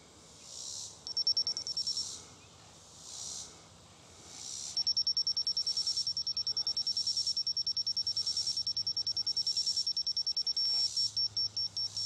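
Laser level receiver beeping as it picks up the laser beam on a post. A short burst of fast beeps comes about a second in, then fast beeping from about five seconds in breaks into slower, uneven beeps near the end. Behind it a chorus of insects swells and fades every couple of seconds.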